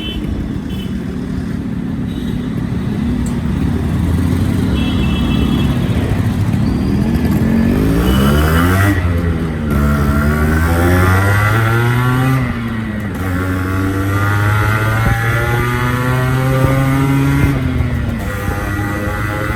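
Yamaha RX100's two-stroke single-cylinder engine, idling steadily and then revved. The pitch rises and falls twice, then holds a higher, slowly climbing note that drops off near the end.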